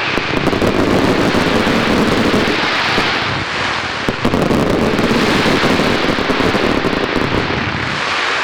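Daylight fireworks going off in a dense, continuous barrage, the many reports running together without a break.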